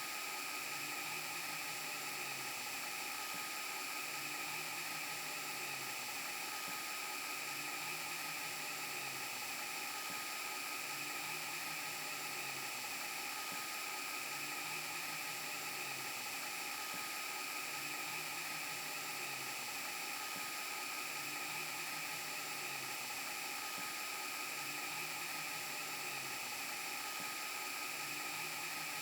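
VHS rewind glitch sound effect: a steady whirring hiss with several held high tones over it, and a low hum that pulses about every second and three quarters.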